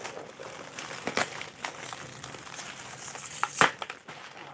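Plastic bubble wrap crinkling as it is handled and unwrapped by hand, with a few sharp crackles, the loudest about three and a half seconds in.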